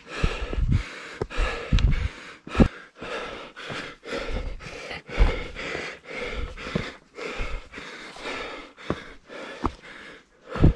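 A tired runner's heavy, rhythmic breathing while climbing stone steps on foot, about two breaths a second, with a few low thuds of footfalls or hand contact.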